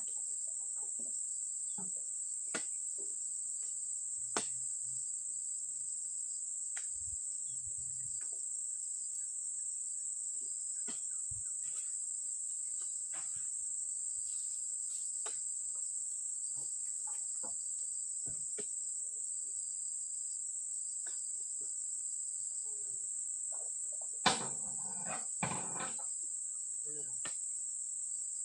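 A steady, high-pitched insect chorus, with scattered knocks and thuds as oil palm fruit bunches are pitched up and land in a dump truck's load. A few louder thuds come near the end.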